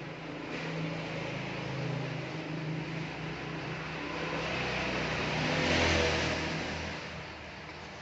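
A motor vehicle's engine running and passing by, growing louder to a peak about six seconds in, then fading.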